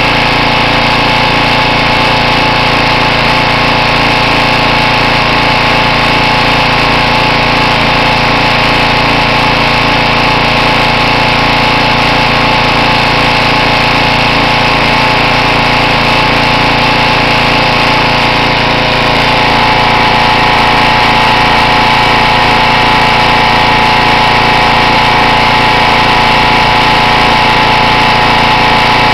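Simoniz 2350 PSI pressure washer's small gasoline engine running steadily and loudly, with a slight rise in level and a change in its tone about two-thirds of the way through.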